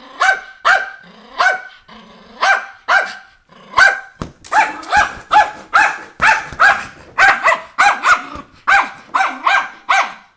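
Miniature schnauzer barking in rapid runs of sharp, high barks; they come more sparsely about two to four seconds in, then speed up to nearly three barks a second.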